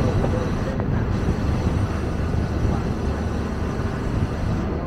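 Steady low rumble of the KTM Ekspres Rakyat Timuran sleeper train running along the track.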